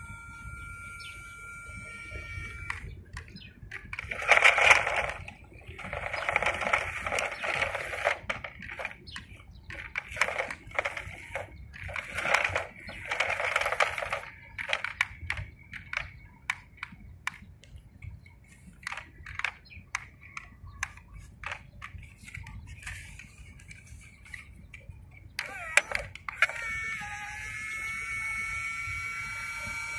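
Toy RC dump truck: a whining electric drive motor at first, then rustling and crackling as it drives over dry straw, with scattered clicks. Near the end the tipper's lift motor whines steadily, rising slightly in pitch, as the bed tips up.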